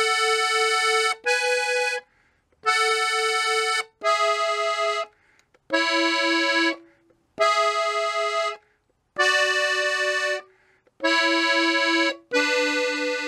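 Three-row diatonic button accordion tuned in E playing a slow corrido melody in sixths on the treble buttons: a run of detached two-note chords, each held about a second with short gaps between. The last chord starts near the end and is held longer.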